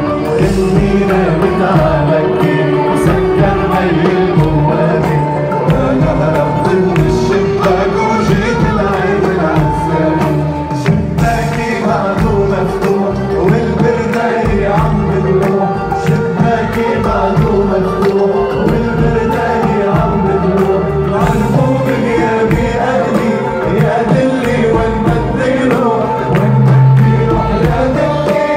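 Live Arabic pop song played by an orchestra and band with percussion, with a male singer's vocal over it.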